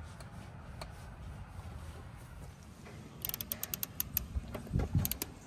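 The pawl mechanism of a Hyper Tough 12V cordless ratchet clicks as the ratchet is worked by hand on a wheel lug nut. About three seconds in there is a quick run of about ten sharp clicks, and near the end a few louder knocks and clicks.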